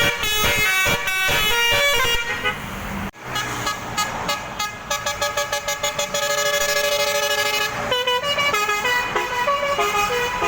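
Basuri telolet horn, a multi-trumpet bus horn, playing a tune. The first notes are quick and short, then it breaks off sharply about three seconds in and resumes with longer held notes and some rapid pulsing ones.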